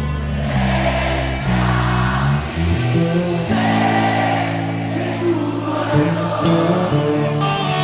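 Live rock concert recording: sustained keyboard chords that change every second or so, under swells of many voices singing together.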